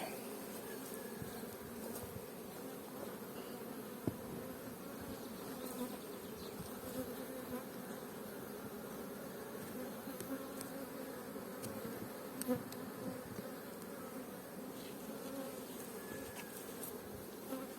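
Honeybee colony humming steadily in an open hive during a frame inspection, with a couple of brief clicks.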